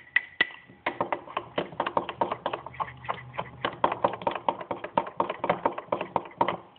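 Metal spoon clinking against a small glass measuring cup while stirring a thick protein shake: a quick run of light taps, several a second.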